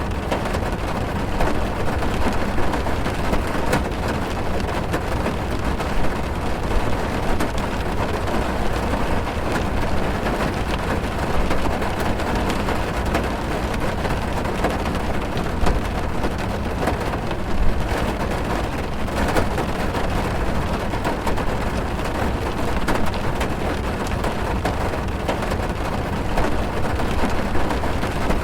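Heavy rain drumming on a car's roof and glass, heard from inside the cabin: a steady, dense hiss with a deep low rumble and many single drops ticking through it, one hit louder than the rest a little past halfway.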